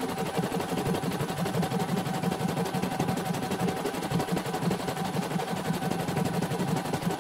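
CNY portable computerized embroidery machine stitching a design: a rapid, even clatter of needle strokes over the hum of its motor, as the hoop carriage steps the fabric along. It is test-stitching after a service in which its motor was replaced.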